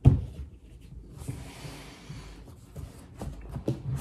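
Books being handled: a loud thump as a hardcover is put down, then about a second of scratchy sliding and rustling, and a few soft knocks as a stack of hardcover and paperback books is gathered and lifted.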